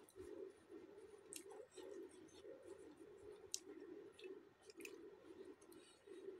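Faint eating sounds: soft clicks and squishes of fingers tearing flatbread and picking up curried pakoras, with chewing, over a low steady hum.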